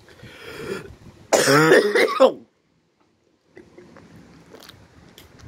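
A person clearing their throat close to the microphone: a short breathy sound, then a loud, rasping, voiced throat-clear about a second in. The sound then cuts out for about a second before faint wind noise returns.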